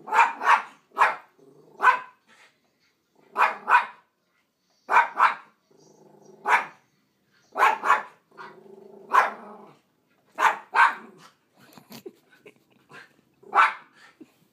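Poodle barking in short, sharp barks, about fifteen of them, often in quick pairs with pauses between. Two longer, lower, steadier sounds come between the barks, about six and eight seconds in.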